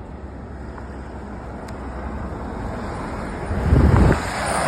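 Outdoor street traffic noise, slowly growing louder, with wind buffeting the microphone in a loud low rumble about three and a half seconds in.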